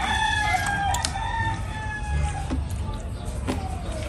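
A rooster crowing: one long drawn-out crow that holds and slowly sinks in pitch, dying away about three and a half seconds in, with a few sharp clicks over it.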